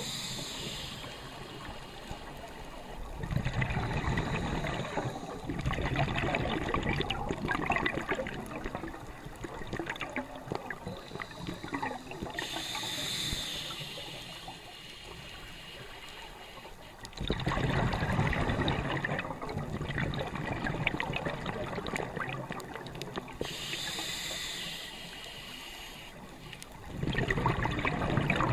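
Scuba diver breathing through a regulator underwater: a short hissing inhale followed by a longer stretch of bubbling exhaled air, repeating about every eleven seconds, with three breaths heard.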